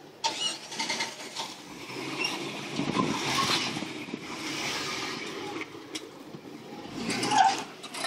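Jeep Wrangler Rubicon engine working under load as it crawls up a steep sandstone ledge, its sound swelling through the middle of the climb, with scattered clicks and a short louder burst near the end.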